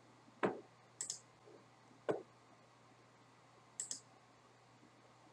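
Computer mouse clicking: four short, sharp clicks spread over the first four seconds, two of them quick press-and-release pairs.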